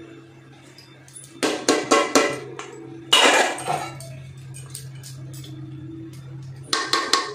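A metal spoon scraping and clinking against a metal cooking pot while gravy is spread over a biryani layer, in three short bursts, the middle one the loudest, over steady background music.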